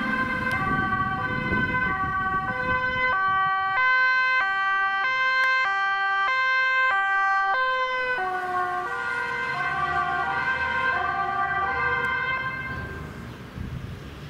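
Dutch police car's two-tone siren alternating between a high and a low note, switching faster for a few seconds in the middle. It then slows, drops slightly in pitch and fades as the car passes and drives away, with the car's engine and tyre noise underneath.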